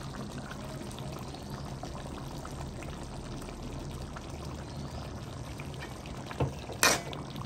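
Mutton curry boiling in an aluminium pot, a steady bubbling. A little after six seconds the ladle knocks against the pot twice, the second knock the loudest sound.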